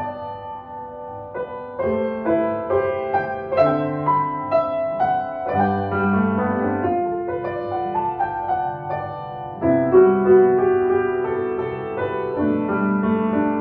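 Solo grand piano played, with struck notes and chords ringing over a moving bass line. There is a loud, sudden accented chord about ten seconds in.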